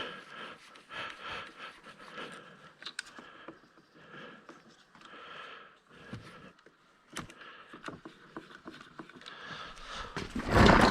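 End mill cutting a keyway into a sprocket hub, a rhythmic scraping that repeats about two to three times a second, with a louder clatter near the end.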